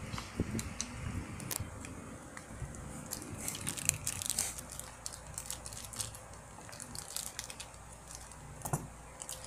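Plastic toy packaging crinkling and rustling as it is handled, with scattered sharp crackles and a few soft knocks.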